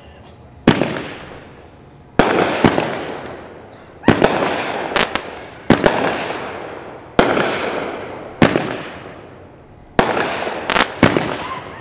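Winda 'All In' 500-gram fireworks cake firing shot after shot: a sharp bang every second or so, some in quick pairs, each trailing off in a fading hiss.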